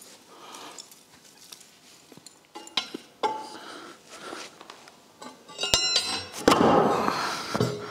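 A steel pry bar knocking and clinking against a heavy concrete slab and the concrete floor as the slab is levered up, with sharp ringing metallic clanks a little before six seconds in. Near the end, the loudest sound: a heavy, grinding scrape of concrete on concrete as the slab comes down and shifts on the floor.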